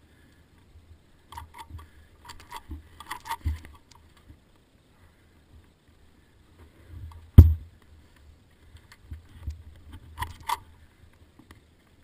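Dirt bike clanking and knocking against rocks as it is worked through a boulder section, with a low rumble underneath. There are bursts of rattling clicks near the start and near the end, and one sharp, loud knock about seven seconds in.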